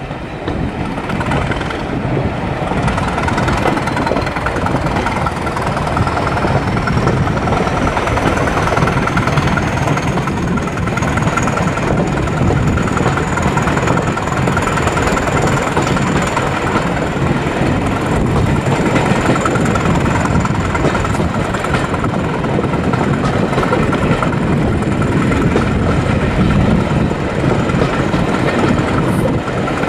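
Class 205 'Thumper' diesel-electric multiple unit on the move, its English Electric four-cylinder diesel and wheels on the rails making a steady running noise. A thin high whine rises over the first dozen seconds and then holds steady.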